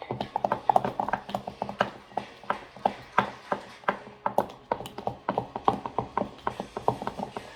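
Slime being mixed: a rapid, irregular run of sharp clicks and taps, several a second.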